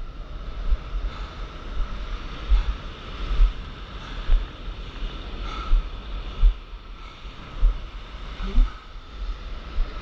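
Ocean surf breaking and whitewater rushing close to the microphone, with wind buffeting the microphone in repeated low gusts.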